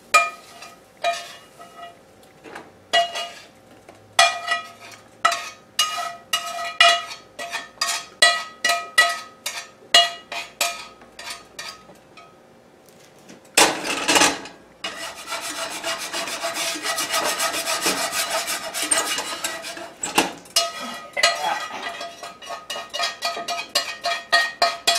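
A metal spatula scraping and tapping stuck scrambled egg off a cast iron skillet: a quick run of scrapes, each with a short metallic ring, then a loud knock about halfway through and several seconds of continuous scraping.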